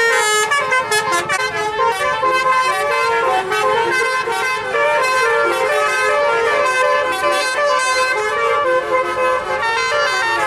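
Bus telolet horn, a multi-tone air horn, playing a melody: several notes sound together and step from pitch to pitch without a break.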